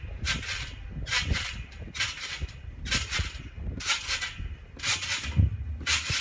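Trampoline being bounced on: a swish of the mat and springs with each bounce, coming regularly about once a second, with low thuds beneath and a heavier thump about five seconds in.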